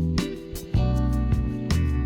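Background music led by a plucked, strummed guitar, with chords changing about every half second.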